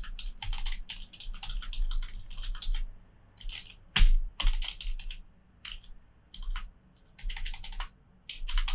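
Typing on a computer keyboard in quick bursts of key clicks with short pauses between them, and one louder key strike about four seconds in.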